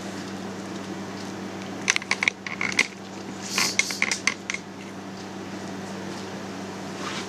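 Melted cheese curd worked in a glass bowl of hot water: two short clusters of sharp splashes, drips and light clinks against the glass, around two and four seconds in, over a steady low hum.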